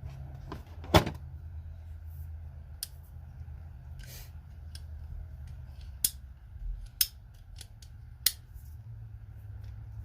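Indexable pry bars being handled, giving about half a dozen separate sharp metal clicks and clinks, the loudest about a second in. A steady low hum runs underneath.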